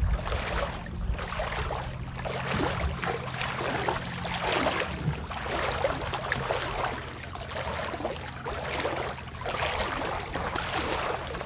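Water lapping and sloshing around a moored fibreglass skiff in shallow water, coming in uneven surges over a steady low hum.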